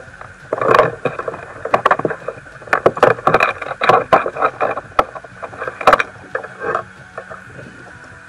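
Irregular knocks, clicks and rustling from handling a freshly caught mackerel and fishing gear aboard a kayak, easing off after about seven seconds.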